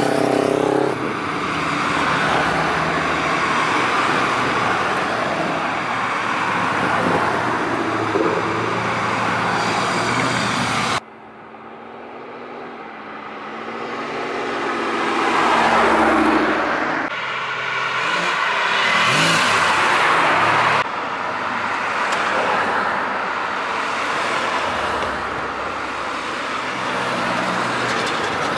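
Classic and muscle cars driving past one after another, engines running over tyre noise on the road. In the middle, a red hot rod coupe approaches and passes, its engine growing louder. The sound cuts abruptly between passing groups several times.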